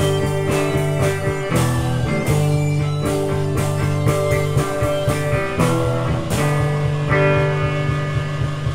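Instrumental psychedelic rock jam: electric guitar holding sustained chords that change every second or so, over steady drumming.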